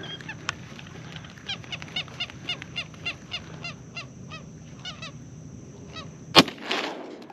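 A run of duck quacks, about three a second, then a single loud shotgun blast about six seconds in, fired at a flock of teal.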